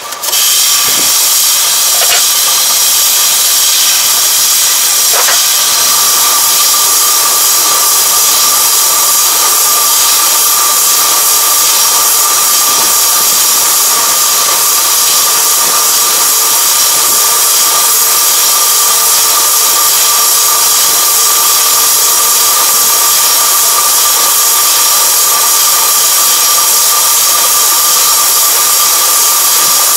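Round-bale wrapper running as it turns a rice-straw round bale and winds plastic film around it: a loud, steady hiss with a constant whine.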